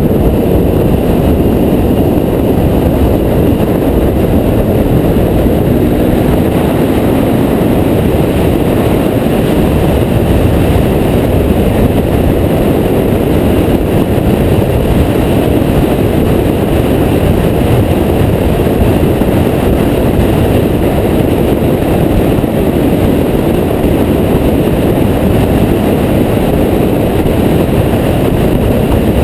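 Steady low rush of wind and road noise on a bike-mounted action camera, with the KTM Duke 390's single-cylinder engine running beneath it at road speed. The bike is brand new and being run in.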